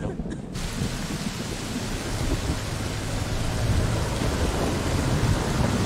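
Heavy rain pouring down in a steady dense hiss, with a low rumble of thunder underneath; it starts suddenly about half a second in.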